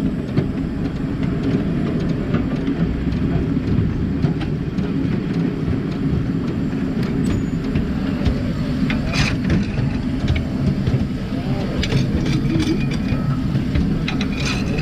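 A 7¼-inch gauge miniature live steam locomotive running along the track with a steady rumble of wheels on rails, and a few sharp clicks in the second half.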